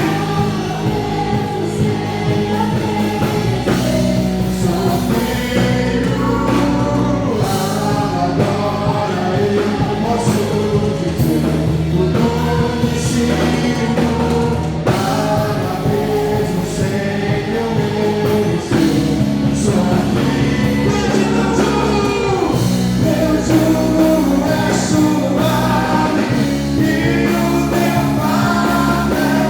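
Live gospel worship music: a praise band playing with sustained bass notes while voices sing.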